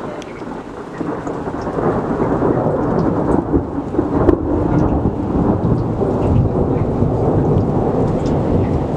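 Thunder rolling after a long lightning bolt: a low rumble that swells over the first couple of seconds and then rumbles on loudly, with a sharper crack a little past four seconds in.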